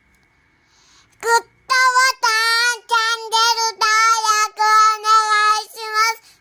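A high singing voice, a child's by the sound of it, comes in about a second in and sings a phrase of held notes with slight vibrato.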